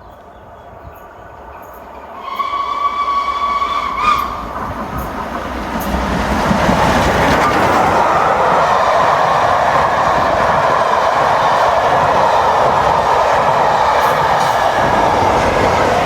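Train horn sounding one steady note for about two seconds, followed by a train passing at speed, its rushing, rattling noise building and then holding loud for about ten seconds.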